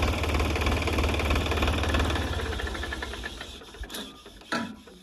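Sonalika DI 42 RX tractor's diesel engine driving a paddy thresher, a steady rhythmic mechanical run with a deep rumble. It dies away over a couple of seconds after about the halfway mark, with a few sharp knocks near the end.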